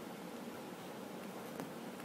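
Faint steady hiss of room tone, with one faint tick about one and a half seconds in.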